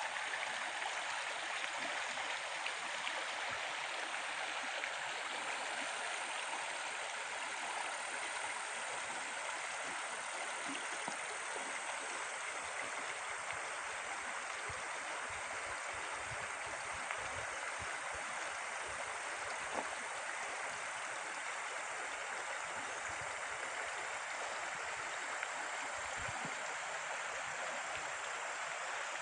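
Shallow river running over a bed of stones and gravel: a steady rush of flowing water.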